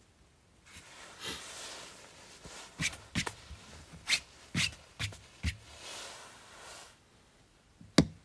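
Rustling with a run of about six sharp knocks and clicks in the middle, and one louder sharp knock near the end: handling noise from something unseen.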